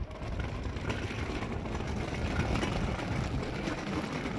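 Wind buffeting a phone's microphone: a steady, uneven rumbling noise.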